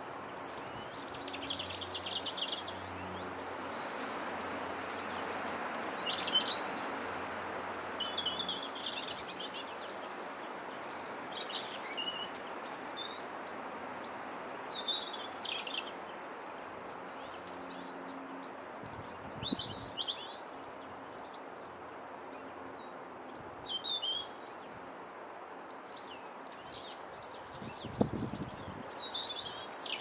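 European robin singing: short, high, thin warbling phrases with pauses between them, over steady background noise.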